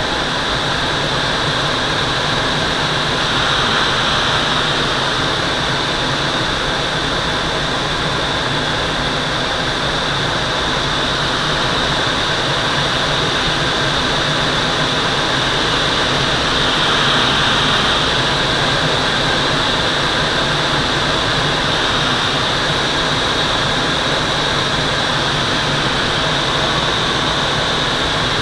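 Steady rush of air over a Twin Astir glider's canopy in flight, swelling slightly a few seconds in and again a little past halfway.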